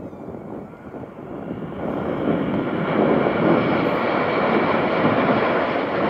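BAE Hawk T1 jets of the Red Arrows, with Adour turbofan engines, passing overhead as a rushing jet noise. It swells over the first few seconds and then holds loud and steady.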